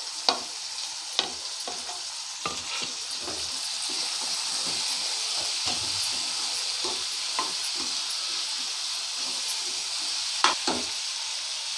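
Raw quail pieces frying in oil and onion-tomato masala in a nonstick kadai, a steady sizzle, while a steel spatula stirs them with scattered scrapes and taps against the pan. It is the first stirring of the freshly added meat, fried until its water comes out.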